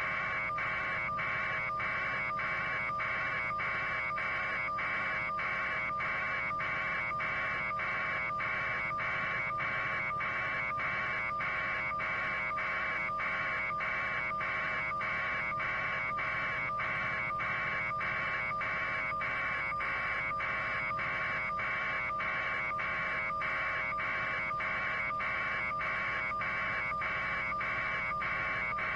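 A steady electronic buzz that pulses about twice a second, over a low steady hum.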